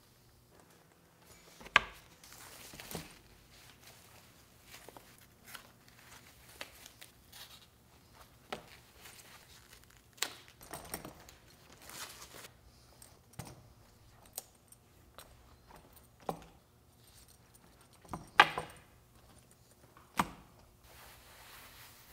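Hands handling a leather apron: leather flaps and straps shifting, paper wrapping rustling, and the metal snap hooks on the straps clinking. Scattered soft rustles, with sharp clicks about two seconds in and twice near the end.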